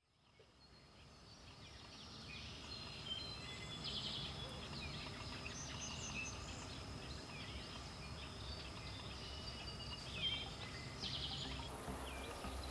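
Outdoor ambience fading in: several songbirds singing and calling over a steady low background rumble, with a fast trilled song about four seconds in and again near eleven seconds.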